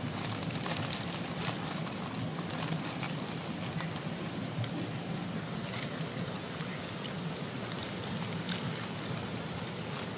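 Steady rain falling, with scattered drops ticking on nearby surfaces.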